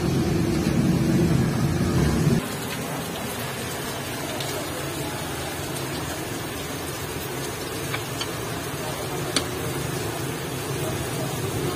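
A steady machine hum with several pitches that cuts off abruptly about two seconds in. It leaves a quieter even hiss with a couple of light metallic clicks near the end.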